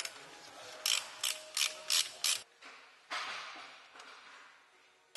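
Hand ratchet wrench clicking in five quick strokes on the cylinder head of a BMW N62 V8, then a softer fading scraping noise.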